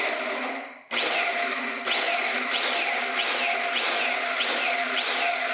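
Electric hydraulic pump of a 30-ton shop press running under load, driving the ram down on a stuck tailstock rod. It cuts out briefly about a second in, then runs steadily with a falling whine repeating about twice a second.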